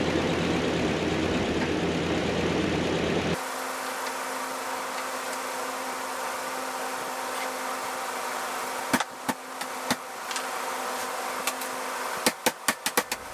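A steady machine hum that drops abruptly to a quieter hum about three seconds in, with a scatter of sharp clicks and knocks over the last few seconds.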